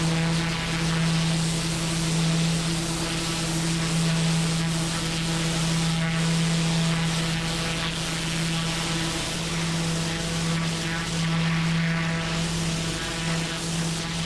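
A pressure washer running steadily at full pressure: an engine-like drone under the hiss of the high-pressure water jet on paving.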